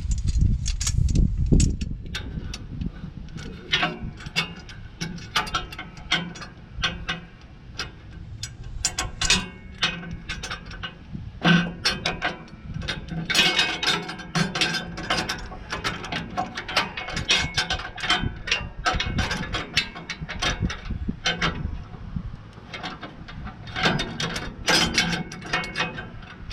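Hand tools and metal hydraulic fittings clicking and clinking irregularly as a steel hydraulic hard line and its fittings are fitted to a tractor loader. A low rumble fades out in the first two seconds.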